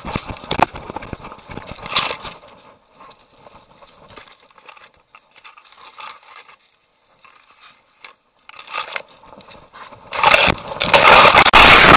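Rough scraping, rubbing and knocking right at a jostled waterproof camera as it moves along a dirt and leaf-litter trail. It goes quieter in the middle, then a loud rough rubbing starts near the end and lasts about two seconds.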